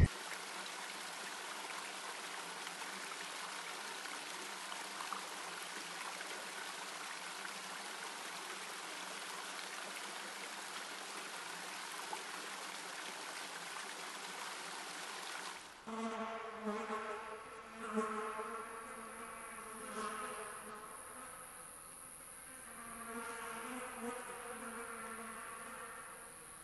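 Steady hiss, then from about 16 seconds in a flying insect buzzing at a steady pitch, swelling and fading several times.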